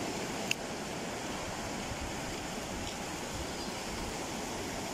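Steady rushing of sea surf washing on the shore, with one short click about half a second in.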